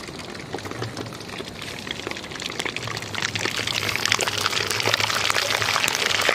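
Hot oil sizzling and crackling in an iron kadhai as a blob of toothpaste fries in it like batter, growing louder about three seconds in as it is stirred.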